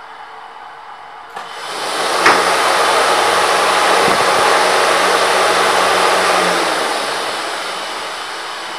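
Evaporator fan starting up about a second and a half in, its rush of air swelling and blowing the fabric defrost damper open with a sharp flap. The fan then runs on with a steady rush of air and a low motor hum, easing off somewhat near the end.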